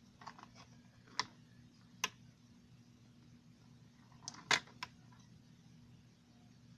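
Small hard balls of a toy pool table clicking and knocking: a few sharp clicks, single ones about one and two seconds in, then three close together a little past the middle, with faint rustling near the start.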